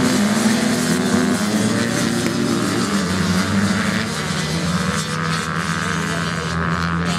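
Several motocross dirt bikes racing past together, their engines at high revs with overlapping, shifting tones, growing a little fainter after about four seconds as they pull away.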